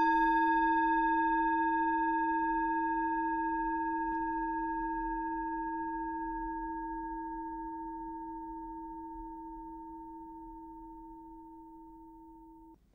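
A meditation bell struck once, ringing with a low tone and several higher overtones that fade slowly for about twelve seconds, marking the start of the meditation, then cutting off suddenly near the end.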